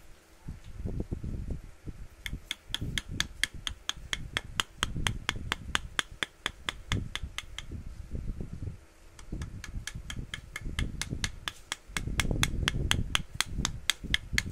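Rapid, even tapping at about four strokes a second, as a hammer drives a carving chisel into wood. It pauses for a few seconds in the middle, then starts again. Irregular dull low knocks and rumble run underneath and are loudest near the end.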